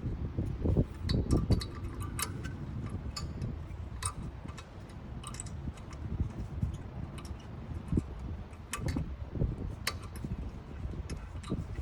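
Light metallic clicks and taps, irregular, with some dull handling knocks: brake pads and their spring clips being handled and fitted into the caliper bracket.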